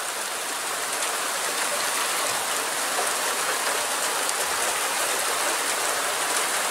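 Steady rain of a heavy shower with big drops, an even hiss sprinkled with many small drop impacts.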